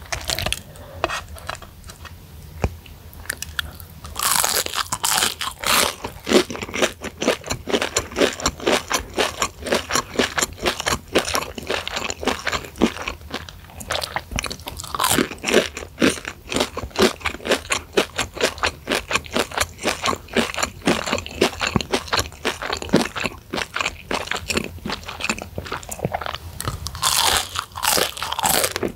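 Close-miked crunching and chewing of Kanzler crispy chicken sticks, fried until crisp and dusted with chili flakes. After a few quieter seconds, a loud crisp bite about four seconds in starts steady crunching and chewing, and another loud bite comes near the end.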